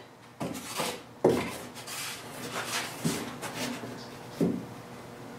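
Cardboard template being handled and rubbed against a shaped foam block: a few brief scrapes and rustles, the sharpest about a second in.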